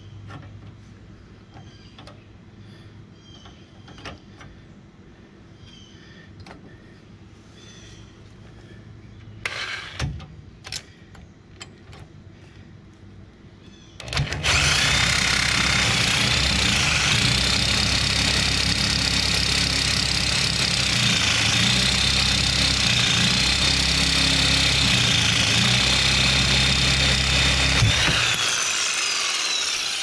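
A few clicks and knocks. About halfway through, a Makita reciprocating saw starts up and saws through the steel hitch-lock pin with a metal-cutting blade. It runs steadily with a wavering high whine, then stops a couple of seconds before the end.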